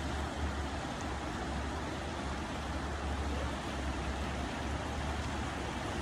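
Shallow river flowing over rocks: a steady rushing of water with a low rumble underneath.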